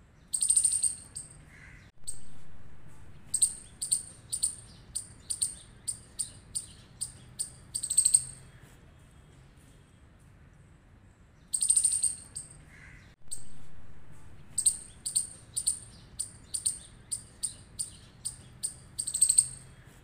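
Chipmunk calls, high and sharp: a longer call, then a run of about a dozen short chips at roughly two a second, getting louder toward the end. The same sequence repeats about halfway through, as a looped recording.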